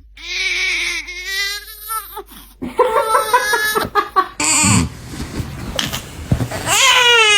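Dog whining and howling in long, wavering, falling cries, with a stretch of clicks and rustling in the middle.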